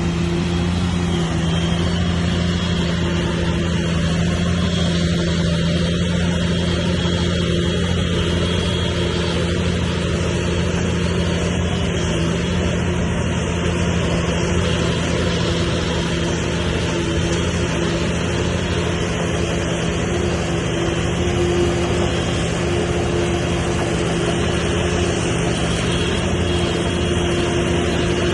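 Heavy diesel earthmoving machine's engine running steadily under constant throttle, with a deep even hum and a faint high whine on top.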